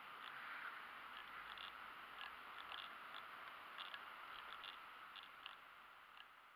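Near silence: a faint steady hiss with scattered faint, short high-pitched ticks.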